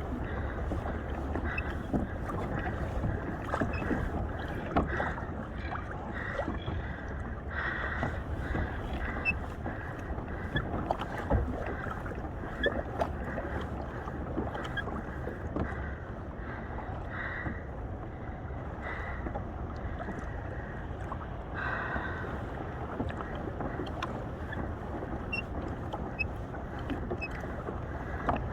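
Water splashing and sloshing around a sit-on-top fishing kayak on an ocean swell, with scattered small splashes and knocks and wind rumbling on the microphone.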